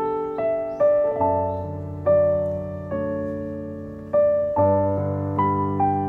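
Background piano music: a slow melody of single struck notes over low held notes.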